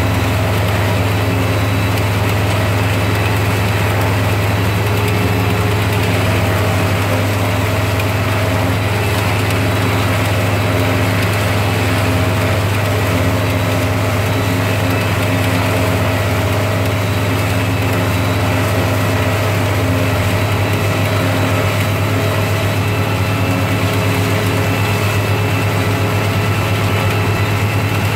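Tractor engine running steadily under load, driving a Papec one-row forage chopper that is cutting standing corn and blowing the chopped silage into a wagon: a loud, even mechanical drone with a strong low hum.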